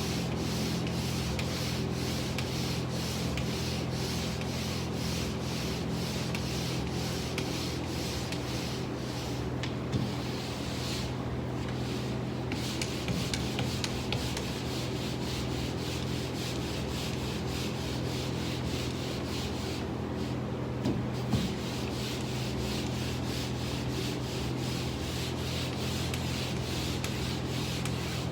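Pole sander's sandpaper pad being pushed back and forth, a steady scratchy rubbing in quick, even strokes of about three a second, pausing briefly twice. A steady low hum runs underneath.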